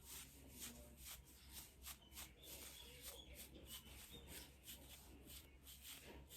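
Near silence: faint room tone with a low hum and light scattered rustling clicks.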